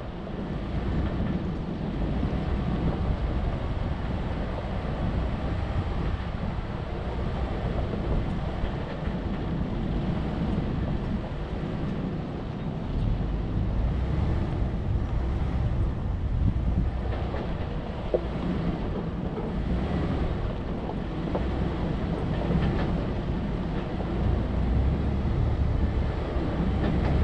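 A 4x4 driving along a dirt trail: a steady, heavy low rumble of the vehicle in motion, with wind buffeting the microphone.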